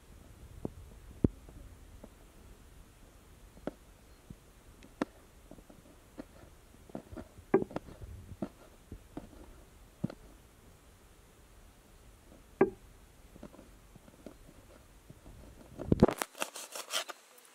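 Kitchen knife cutting red chillies on a wooden tray: irregular knocks of the blade against the wood, about one a second, ending in a quick run of sharp clicks.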